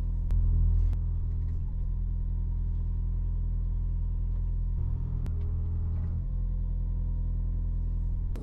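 Diesel engine of a piece of earthmoving equipment running steadily under work, with a brief rise in load about half a second in and a few sharp clicks.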